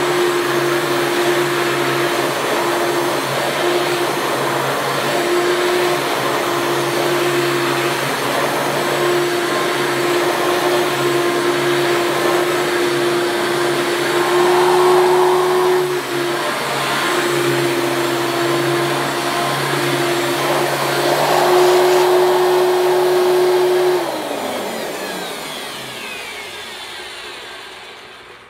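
Hoover Elite II upright vacuum cleaner running steadily, its motor still giving a little bearing sound from one end despite freshly greased bearings. Near the end it shuts off and the motor winds down with a falling pitch.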